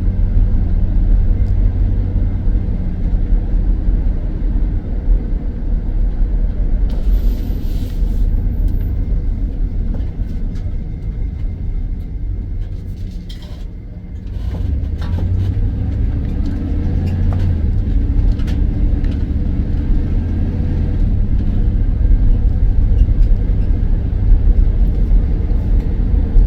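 Road and engine noise of a moving car heard from inside the cabin, a steady low rumble that eases off about halfway through and then picks up again.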